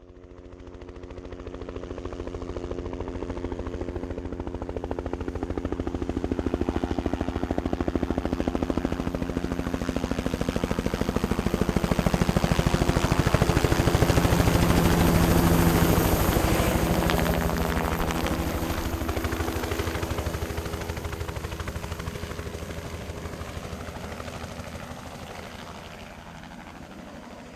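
Bell 206 helicopter flying past: its rapid two-blade rotor beat and a high turbine whine grow louder over about fifteen seconds, peak, then fade away as the pitch drops after the closest point.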